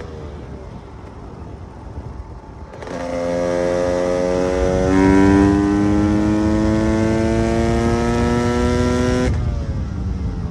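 KTM EXC 300's two-stroke single-cylinder engine. For the first three seconds it runs softer with a falling pitch. It then comes in loud and sharply, pulls hard with a slowly rising pitch and a step about five seconds in, and drops off suddenly near the end as the pitch falls away.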